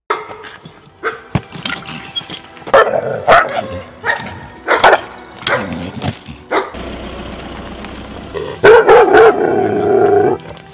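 Belgian Malinois barking: a string of sharp barks over the first six or so seconds, then a longer, louder stretch of barking near the end.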